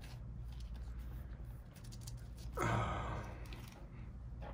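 A person sighing, one breathy exhale of under a second about two and a half seconds in. Faint clicks of a trading card being handled and pushed into a plastic sleeve, over a steady low electrical hum.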